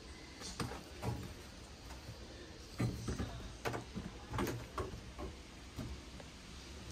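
Small potted succulents being set down and arranged on a surface: scattered light knocks and clicks at irregular intervals.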